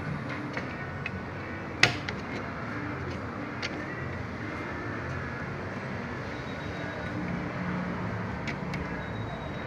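Scattered light clicks and taps of plastic and metal as a hard disk and its SATA data and power cable connectors are handled in a CCTV recorder case, with one sharp click about two seconds in. A steady background rumble runs underneath.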